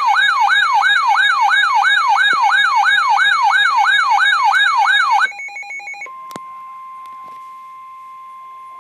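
NOAA weather alert radio sounding a winter storm warning alarm. For about five seconds a loud warbling siren sweeps down quickly, about three times a second. After a brief pulsing it gives way to the quieter, steady single-pitch warning alarm tone of the weather broadcast, with a click about six seconds in.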